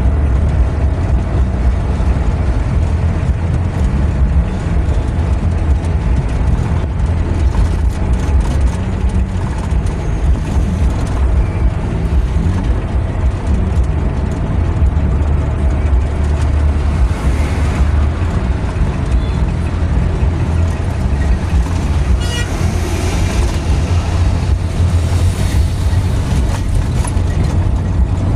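Steady low engine and road rumble of a moving vehicle, heard from inside the cabin as it drives along a highway.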